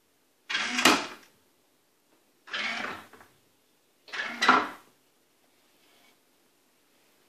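A remote-controlled bait boat's electric mechanism worked in three short bursts of mechanical noise, each under a second, two of them ending in a sharp click.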